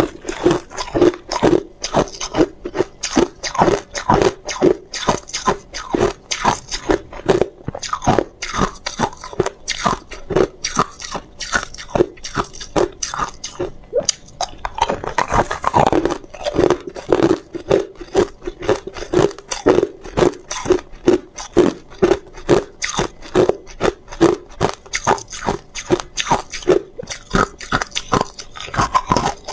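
Hard ice being bitten and chewed, close-miked: rapid crisp crunches, two or three a second, with a brief lull about halfway before the next piece is bitten.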